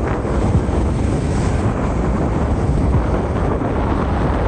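Wind buffeting the microphone on a moving boat: a steady, loud, low rumbling rush with small irregular thumps.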